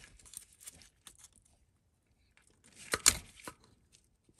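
Small clicks and scrapes of a screwdriver prying up the plastic locking clip on a crankshaft position sensor's wiring connector. A cluster of sharp clicks comes about three seconds in.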